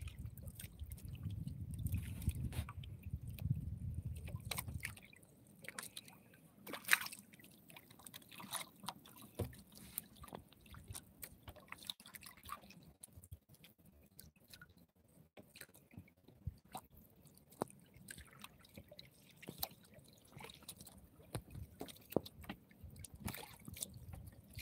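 Water lapping and dripping against a small wooden outrigger boat, with scattered small clicks and knocks. A low rumble fills the first few seconds, then it goes quieter.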